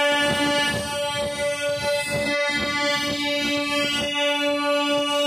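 Diesel-electric multiple unit train's horn sounding one long, steady blast at a single pitch, over low background noise.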